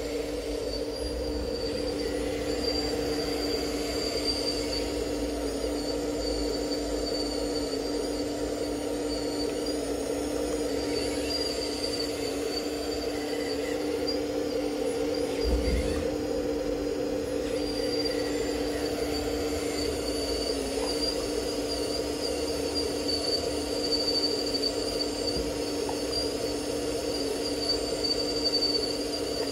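Radio-controlled scale Liebherr 954 excavator model at work, its electric motors giving a steady whine with a thin high tone that wavers in pitch as the machine moves.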